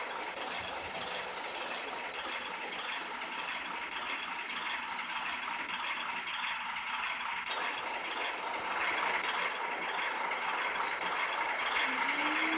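Freight cars of a cement train rolling past: a steady metallic rattle and clatter of wheels and car bodies that grows a little louder toward the end.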